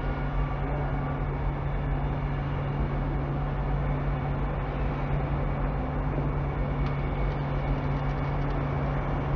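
Steady low mechanical hum with a constant rushing noise underneath, unchanging throughout.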